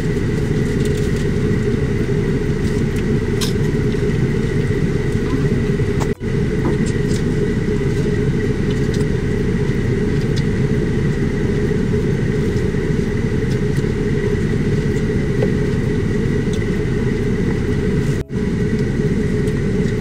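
Steady rumble of an idling vehicle engine heard from inside the cab, with a thin, steady high whine above it. It drops out for an instant twice.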